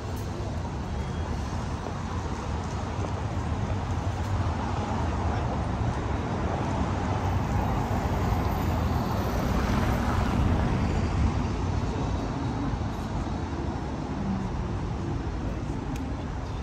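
Road traffic noise on a city street. It swells as a vehicle passes close a little past the middle, then eases off again.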